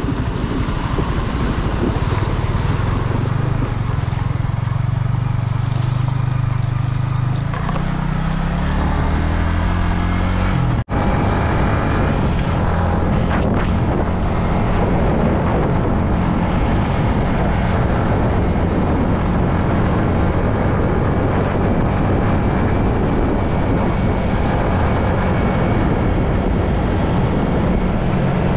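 Yamaha MT-15's single-cylinder engine running while the motorcycle is ridden, heard from the rider's seat. The engine note climbs as the bike accelerates about eight seconds in; the sound breaks off abruptly near eleven seconds and picks up again as a steady engine note under a rushing noise at cruising speed.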